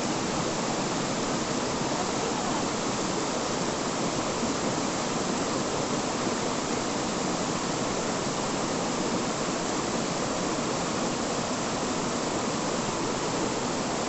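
Steady, unbroken rush of water pouring over rocks at a waterfall.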